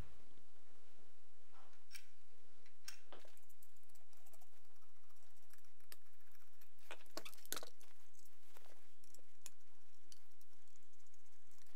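Screwdriver and metal rifle parts clicking and tapping as a top handguard is secured on an AK-105. The clicks are scattered, with a quick cluster of them about seven seconds in.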